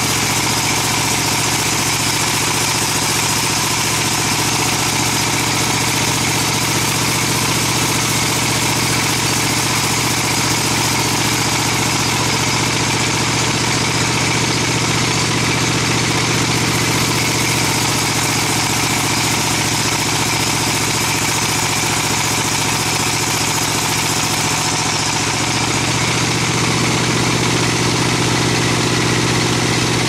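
Large sawmill band saw running steadily as its blade rips lengthwise through a teak log.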